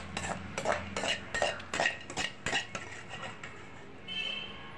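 Metal ladle scraping and knocking against an aluminium kadai, a string of short clinks two or three a second, as the sautéed onion mixture is scraped out of it. A brief high metallic ring about four seconds in.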